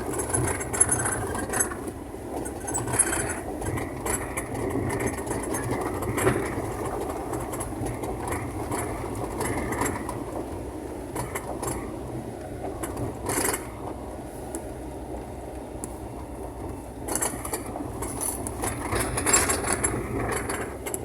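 Inside a car driving over a rough, muddy road: a steady rumble of engine and tyres, with a few knocks and rattles from the bumps, one sharp knock about two-thirds of the way through.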